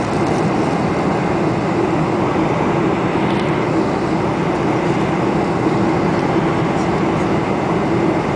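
Steady cabin noise inside a Boeing 747-400 in flight on descent: an even rush of engine and airflow noise with a steady low hum.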